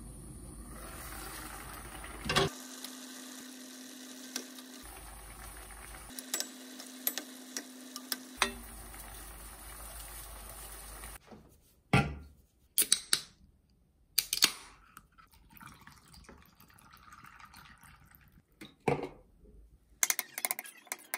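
A pan of braised meat simmering under a glass lid, a steady bubbling hiss, with a sharp clink of the lid about two and a half seconds in. After about eleven seconds it gives way to a quieter stretch with a few sharp clinks and knocks.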